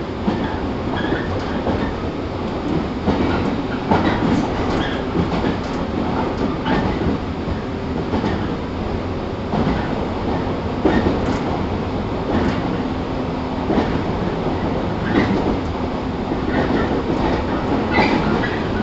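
115 series 1000 subseries electric train (KuMoHa 115-1005) running, heard from inside the car: a steady rumble and hum with wheels clacking over rail joints every few seconds.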